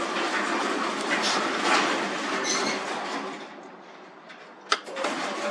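Newly installed garage door opener running, the door rolling along its tracks with a steady rattle; the run dies away about three and a half seconds in, a sharp click comes just before five seconds, and the running starts again near the end.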